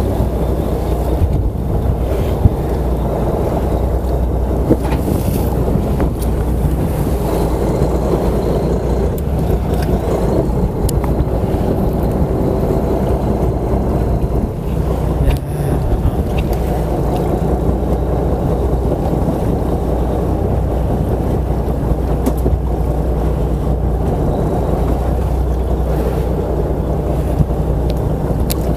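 Fishing boat's engine running steadily, a constant low hum under wind noise, with a few brief sharp knocks.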